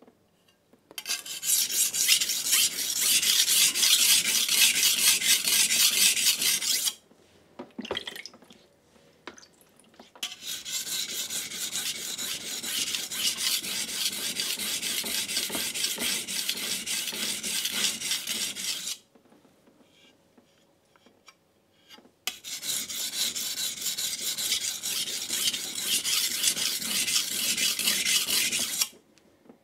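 Kitchen knife blade being ground on a coarse King G-45 220-grit whetstone: fast back-and-forth scraping strokes at the tip, raising a burr. It comes in three long bouts with short pauses between.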